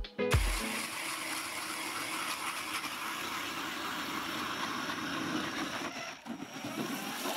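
Power ice auger drilling a hole through lake ice: steady noise of the bit cutting through the ice, with a short drop about six seconds in.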